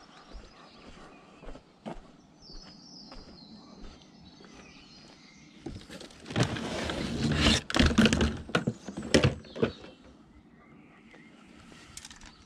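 Cardboard box rustling and crackling while a plastic wet-and-dry vacuum cleaner and its hose are pulled out of it, with sharp knocks of plastic, loudest from about six to ten seconds in. Before that, only a few light clicks.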